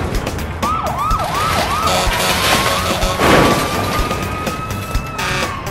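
Cartoon emergency-vehicle siren: about five quick rising-and-falling yelps, then one long held wail that falls away near the end. Crashes of breaking concrete and a low rumble run underneath.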